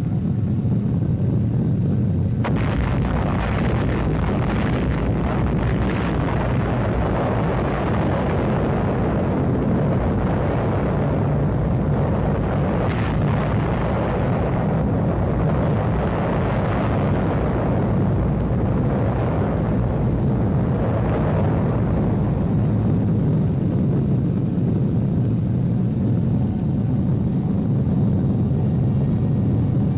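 Deep rumbling roar of an atmospheric nuclear test explosion, loud and steady throughout, with a hissing upper layer that comes in sharply about two seconds in.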